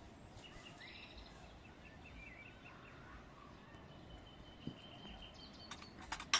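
Quiet outdoor ambience with birds chirping. Near the end come a few sharp clinks of a metal ladle against the cooking pot while saffron rice pudding is ladled out.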